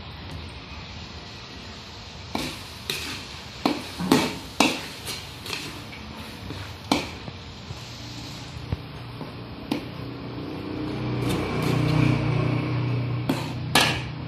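Long metal spatula knocking and scraping against a large aluminium wok while chunks of goat meat are stirred. It is a string of sharp clanks, bunched in the first half, then a few more. From about eight seconds in, a steady low sound swells under the stirring.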